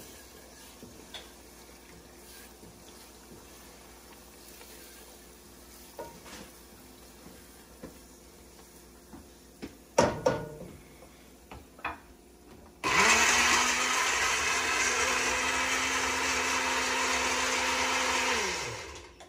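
A few clicks and sharp knocks, then an electric blender starts about two-thirds of the way through and runs steadily for about six seconds, blending shrimp with hot pepper. It is switched off near the end, and its motor whine falls away as it spins down.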